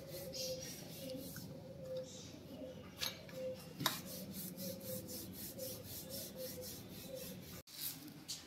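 Wooden rolling pin rolling out roti dough on a flour-dusted rolling board: soft, faint rubbing strokes, with two light knocks about three and four seconds in.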